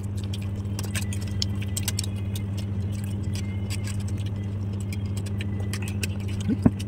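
Forks clinking and scraping against plates while eating: many small, irregular clicks over a steady low hum.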